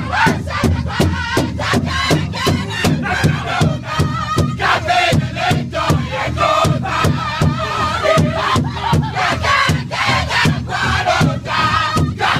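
Powwow drum group singing an intertribal song in high voices over a large shared powwow drum, struck together in a steady beat about three times a second.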